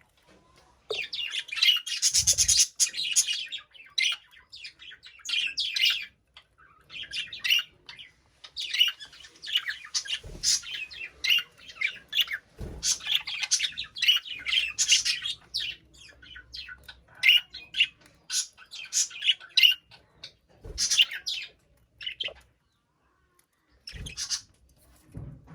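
Budgies (budgerigars) chirping and chattering in a cage: rapid, high-pitched warbling in bursts with short pauses, and a few soft knocks.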